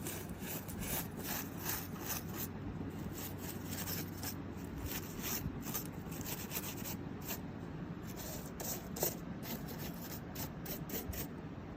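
Keyboard cleaning brush scrubbing, its bristles rubbing in many quick, irregular strokes.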